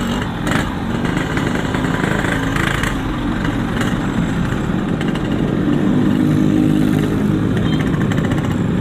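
Yamaha RX-King's two-stroke single-cylinder engine running through a Boban C33 aftermarket exhaust while being ridden at low speed, the revs rising a little midway.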